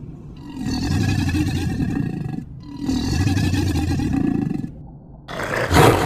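A sound-designed Baryonyx call built from animal recordings that include a pelican's. Two long, low calls of about two seconds each, then a sudden, louder call near the end.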